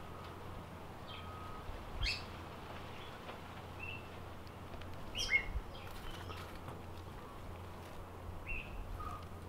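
Birds chirping now and then: short, separate chirps a second or more apart, the loudest about two and five seconds in, over a low steady hum.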